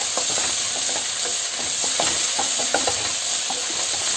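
Diced beans and carrots sizzling in oil in a non-stick wok over a high flame, turned with a wooden spatula that scrapes and knocks against the pan in short, irregular strokes.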